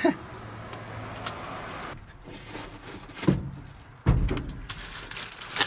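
Two dull thumps, about three and four seconds in, with handling noise around them.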